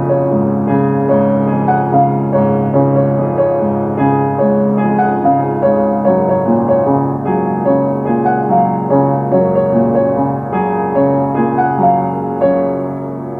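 Piano music, a gentle melody of repeated notes over sustained low notes, fading to a held chord near the end.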